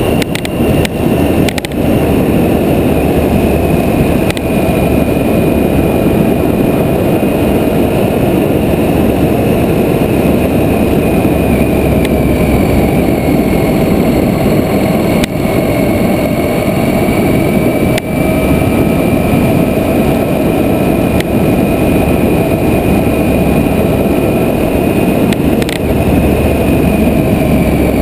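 Triumph Tiger 800 XCa's three-cylinder engine running at a steady cruise on a gravel road, largely buried under a steady rush of wind on the microphone, with a few sharp clicks scattered through.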